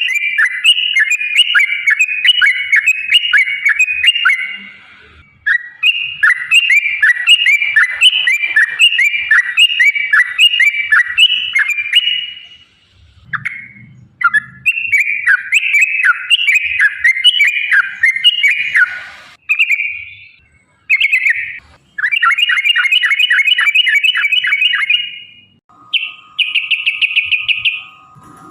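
Yellow-vented bulbul (trucukan) song: long, rapid runs of bubbly, chattering notes with a few short breaks between runs. Near the end a steady thin tone sounds beneath the song.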